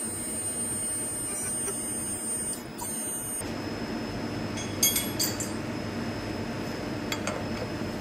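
CNC milling machine running with a thin high whine over a hum; about three and a half seconds in the whine stops, leaving a lower hum, and a few light metal clinks follow.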